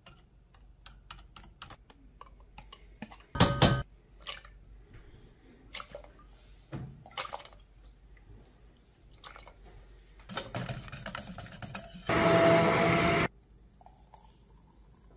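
Wire whisk ticking and scraping against a glass mixing bowl as chocolate and milk are stirred, with a loud clatter about three and a half seconds in. Near the end comes a loud, steady rush of liquid lasting about a second.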